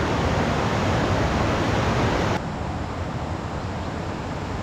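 Steady rush of flowing river water. About halfway through it drops suddenly to a quieter, duller rush.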